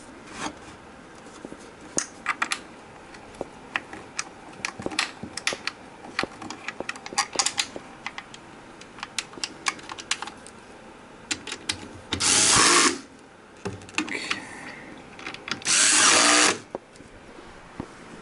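Cordless drill driving screws into a particleboard keyboard stand, in two short runs of under a second each, about twelve and sixteen seconds in; the motor winds down at the end of the second run. Before the runs come scattered light clicks and knocks of the parts and hardware being handled.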